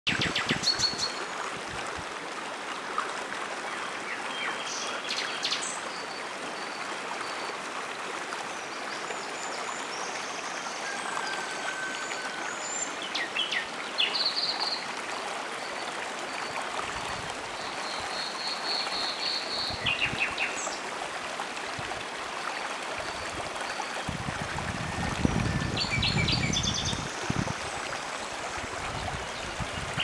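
A shallow forest river flowing over stones, with small birds chirping and trilling above it at intervals. A low rumble comes in over the last several seconds.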